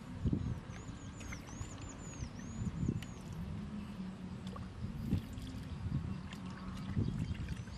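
Hands squeezing and rinsing sliced vegetables in water in a stainless steel bowl: wet squelching and trickling, with louder squelches about every two seconds. A high chirping repeats in the background during the first three seconds.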